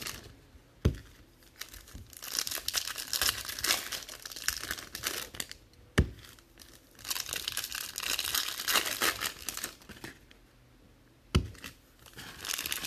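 Foil trading-card packs being torn open and crinkled in several spells, with three sharp knocks: about a second in, midway, and near the end.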